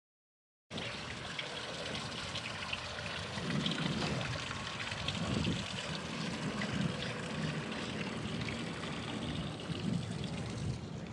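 Dead silence for under a second, then a steady trickle of water with a hiss behind it.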